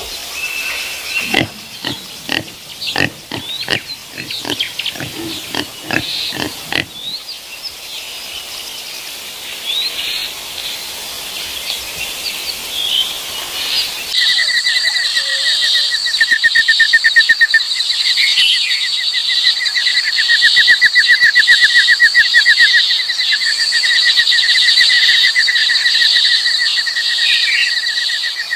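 Peccary grunting in a series of short, sharp sounds over the first seven seconds. From about halfway, a steady chorus of insects trilling in rapid pulses takes over.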